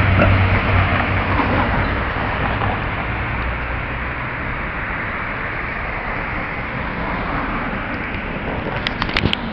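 Street traffic noise with a steady low engine hum that fades after the first few seconds. A quick run of sharp clicks near the end.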